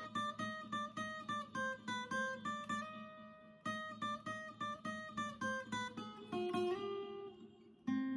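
Background music: a melody of quick, evenly paced plucked-string notes, with short breaks between phrases.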